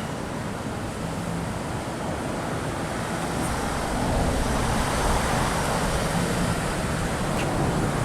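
Road traffic: cars driving past in a steady rush of tyre and engine noise that grows a little louder from about halfway.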